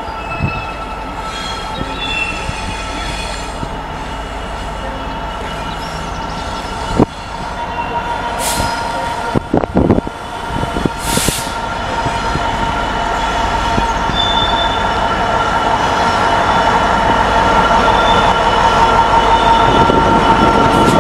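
DB Cargo Class 66 diesel locomotive, with its EMD two-stroke V12 engine, hauling tank wagons and drawing closer, the engine and wheels growing steadily louder, with steady high tones over the rumble. A sharp knock comes about seven seconds in, followed by a few brief hisses.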